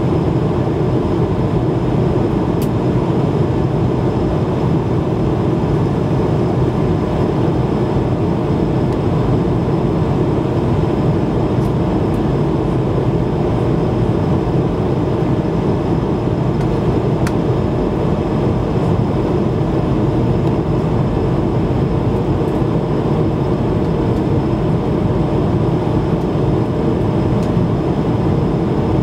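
Steady cabin noise of an Airbus A220 climbing shortly after takeoff, heard from a window seat beside the wing: its Pratt & Whitney PW1500G geared turbofan engines and the rushing airflow make a constant low rumble, with a few faint steady hums above it.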